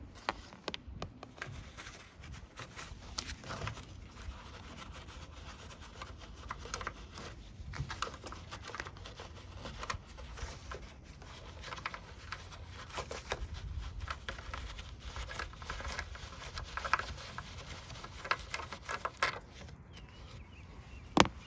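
Irregular small clicks, taps and rustling of hands handling plastic parts, over a low steady background rumble.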